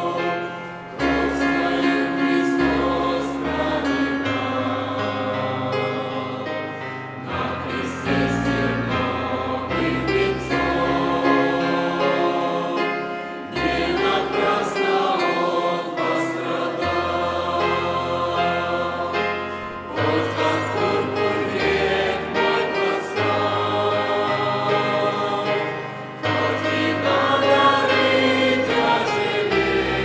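Choir singing a Christian hymn verse in Russian with sustained chords and a low bass line. The singing comes in phrases of several seconds each, with brief breaks between them.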